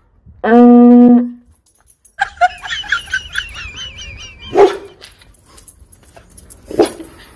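Dogs vocalizing: a loud, steady, drawn-out call about half a second in, then high, wavering whines for a couple of seconds, and two short barks, one past the middle and one near the end.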